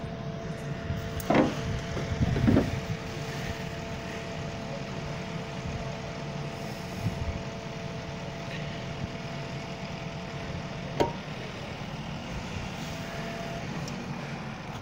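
CELA truck-mounted aerial work platform running: a steady engine drone with a steady whine from the boom drive, the whine cutting off with a click about eleven seconds in. Two knocks in the first few seconds.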